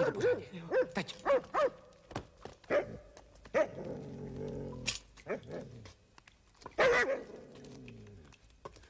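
A dog barking: a quick run of short barks, then a few single barks, a low growl lasting about a second, and another burst of barking near the end.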